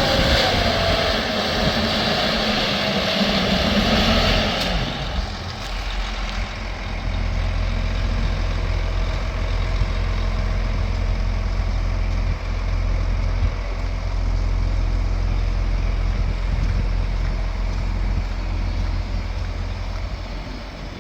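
Volvo A40G articulated hauler's diesel engine running faster with a loud hiss for the first few seconds, then settling to a steady low idle about five seconds in.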